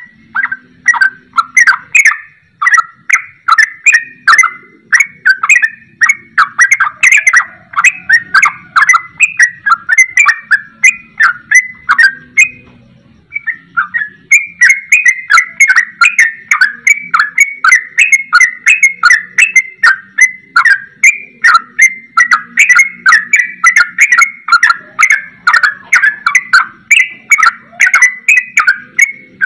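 Yellow-vented bulbul (trucukan) in full song, pouring out a fast, unbroken run of short chattering notes with one brief pause about halfway through. This rapid 'ropel' style is sold as the trucukan copying the song of a straw-headed bulbul (cucak rowo).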